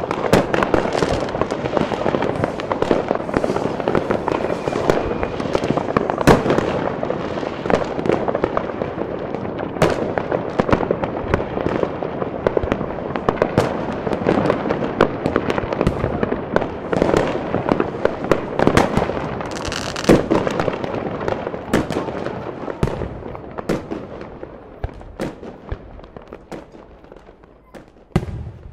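Many fireworks and firecrackers going off at once across a town: a continuous crackling din with sharper single bangs standing out now and then, fading away over the last few seconds before cutting off.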